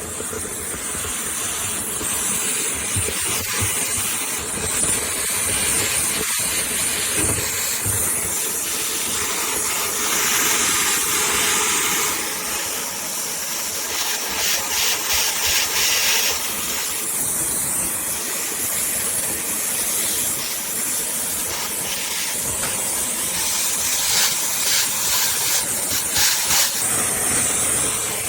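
Dyson handheld vacuum running with a narrow flexible lint hose on its crevice tool, drawing air out of a dryer's lint-trap housing: a steady, high airflow hiss. Stretches of rapid rattling come in about halfway through and again near the end.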